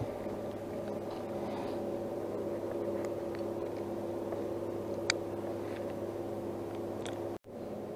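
Steady electric motor hum. A few light clicks come from pliers working the hook out of a small crappie, the clearest about five seconds in.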